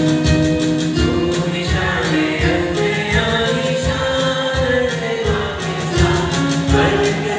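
Choral music: voices holding long sung notes over a steady low drum beat about twice a second.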